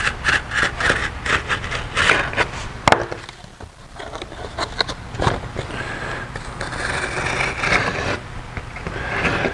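Utility razor knife scraping and slicing through a stack of white gauge sheet on a wooden bench, in quick repeated strokes. A sharp click comes about three seconds in, then a quieter pause while the piece is handled, and steadier cutting strokes resume for the last few seconds.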